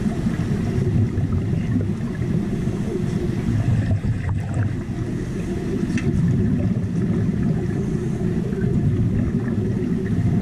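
Underwater wet stick welding heard through a camera in the water: a steady, muffled, rumbling bubbling from the arc and the diver's exhaust bubbles.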